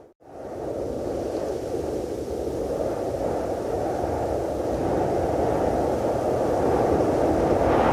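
Cold wind sound effect: a steady, rushing howl of wind that cuts out for an instant right at the start, then comes back and slowly swells louder.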